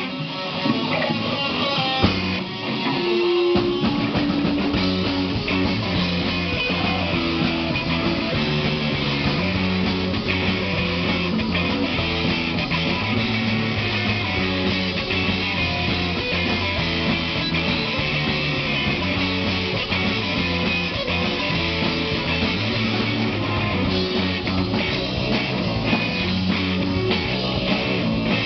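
Rock band playing live, electric guitar over a drum kit. A few sparser guitar notes open, and the full band comes in about three and a half seconds in.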